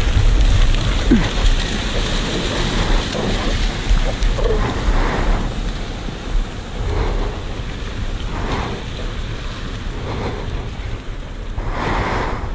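Wind buffeting the microphone over surf washing onto the beach, with several louder swells every second or two.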